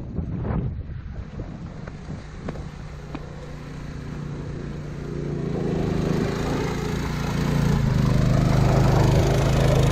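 A 212cc 6.5 hp single-cylinder go-kart engine running and getting louder from about halfway through as the kart picks up speed.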